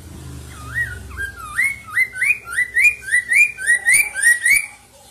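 Chinese hwamei (poksay mandarin) singing a fast run of about a dozen loud, clear whistled notes, each swooping up and down. The notes come three to four a second and stop shortly before the end.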